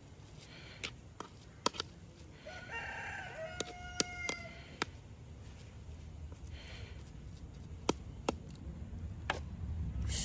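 A rooster crows once, a long call a few seconds in. Scattered sharp knocks and clicks sound around it.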